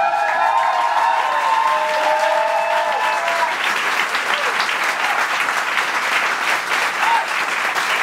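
Audience applauding and cheering, with whoops over the clapping during the first few seconds.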